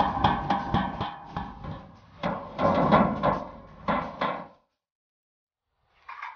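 Hammer driving a chisel through the sheet metal of a square tin, each blow ringing through the tin: quick taps at about five a second, then a few heavier, longer strokes about two seconds in. It cuts off abruptly, with one short strike near the end.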